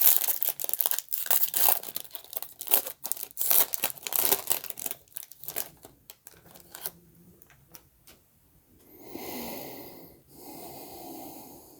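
Foil trading-card pack wrapper being torn open and crinkled, a dense run of crackling. Near the end come two softer, smoother rustles.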